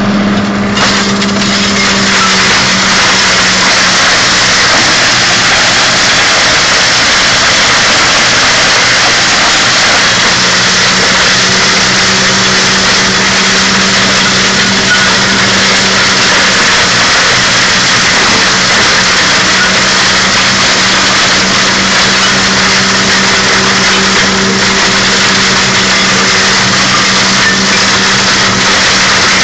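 Case IH 685 XL tractor's diesel engine running steadily under load, driving a flail mulcher that is shredding branches, heard from inside the cab: a constant engine hum under the continuous rush of the mulcher's flails.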